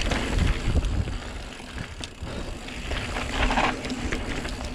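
Santa Cruz Megatower mountain bike descending a dirt singletrack at speed: knobby tyres crunching over loose dirt and gravel, with the bike rattling and clicking over the bumps and wind rumbling on the microphone. About three and a half seconds in there is a brief, louder scrape as the tyres slide in loose dirt.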